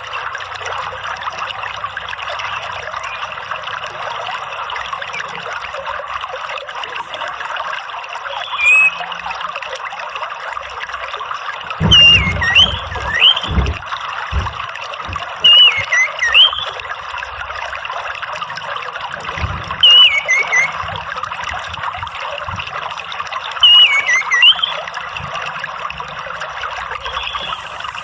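Steady trickling running water with an orange-headed thrush calling over it: short whistled phrases that fall in pitch, roughly every four seconds from about nine seconds in, louder than the water. A few low thumps sound about halfway through.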